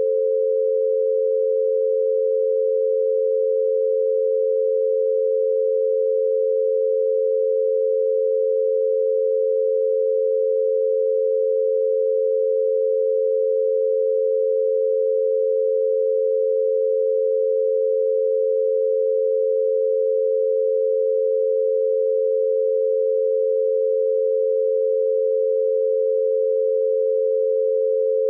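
An 88 Hz binaural beat: two steady pure sine tones a little below and a little above 500 Hz, 88 Hz apart and meant to be heard one in each ear on headphones. The tones hold unchanged throughout.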